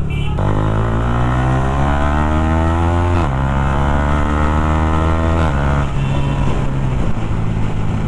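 Sport motorcycle with a loud aftermarket exhaust accelerating hard, the engine note rising through a gear. It drops sharply at an upshift about three seconds in, climbs again, and drops once more about five and a half seconds in before running steadier.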